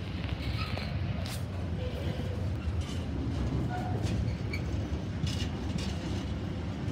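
Intermodal container freight train passing close by: a steady rumble of the flat wagons' wheels on the rails, with occasional sharp clicks.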